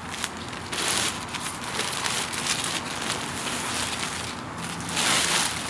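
Rustling and crinkling as items are handled and moved about, with louder surges about a second in and again near the end.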